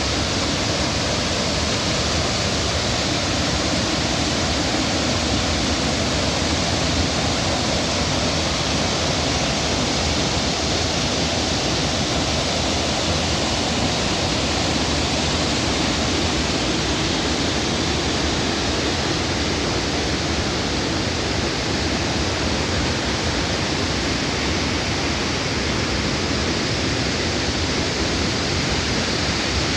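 Waterfall: water falling and splashing in a loud, steady rush with no pauses or changes.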